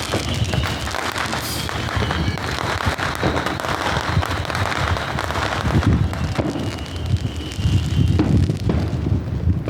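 Fireworks show going off: a dense, continuous crackling and popping of aerial shells with frequent deep booms, heavier in the last few seconds.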